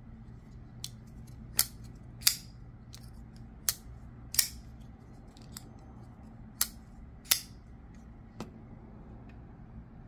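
Kizer Sparrow folding knife being flicked open and shut: sharp metallic clicks as the blade snaps out into its lock and back closed. The loudest come in three pairs about two-thirds of a second apart, with a few lighter clicks between.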